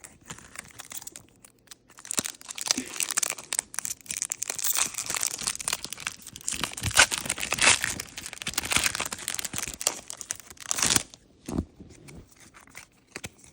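A Pokémon booster pack's foil wrapper being crinkled and torn open, a dense crackling that starts about two seconds in and stops a couple of seconds before the end.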